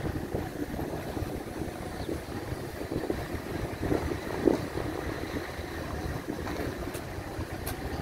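Steady low rumble of a car driving along a street: engine and tyre noise with some wind on the microphone. There is a sharp click near the end.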